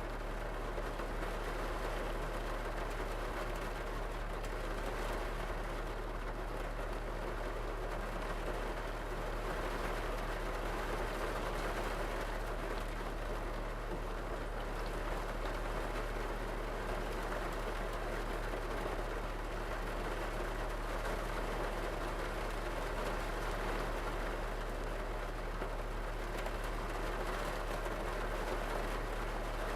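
Rain falling on a car's roof and windows, heard from inside the cabin: a steady, dense patter with a steady low hum underneath.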